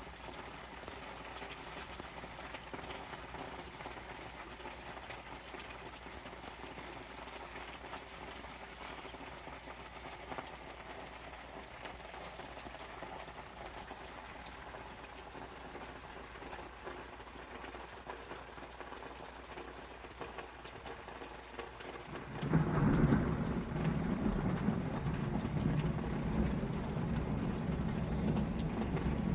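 Steady rain falling, the nearest drops hitting plastic tarps. About 22 seconds in, a loud low rumble of thunder starts and keeps rolling.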